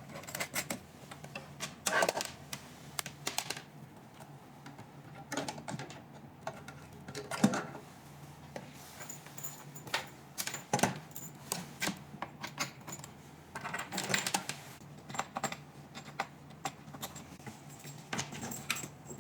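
Irregular clicks, taps and small rattles of laser-pad cable plugs being handled and pushed into the body-sculpting machine's sockets, over a faint steady low hum.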